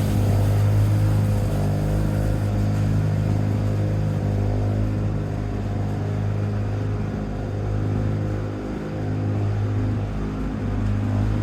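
Lawn-Boy 8073B mower's two-stroke engine running steadily, its speed sagging briefly and recovering about nine seconds in.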